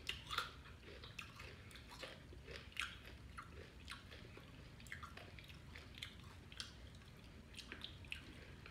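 A person chewing food close to the microphone: faint, irregular mouth clicks and smacks.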